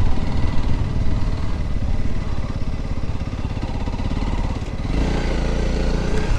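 Dual-sport motorcycle engine running at low speed, heard close up from the bike with wind rumble. About five seconds in, its note settles into a steadier tone.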